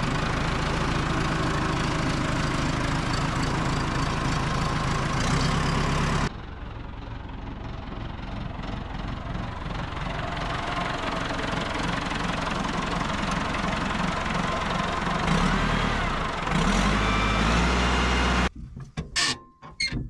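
Backhoe loader's diesel engine running. The sound drops abruptly about six seconds in and grows slowly louder again, then gives way near the end to a few sharp clicks and knocks.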